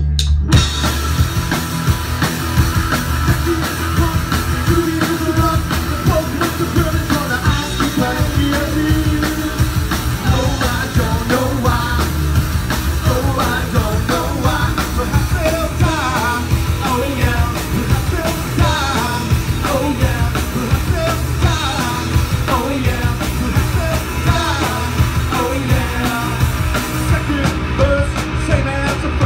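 Live rock band playing a song, with electric guitars, bass guitar and drum kit and a lead vocal, recorded from the audience in a club.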